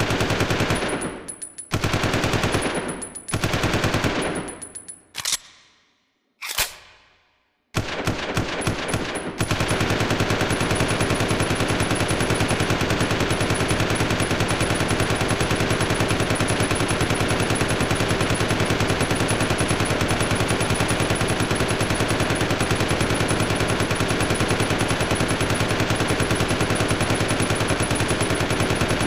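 Heckler & Koch MP5A3 9 mm submachine gun firing on full auto: a few short bursts with ringing tails, a brief shot, then continuous rapid fire from about a third of the way in to the end.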